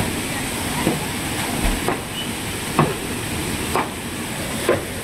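Hands scooping and splashing muddy floodwater and silt, one short splash about every second, over a steady hiss.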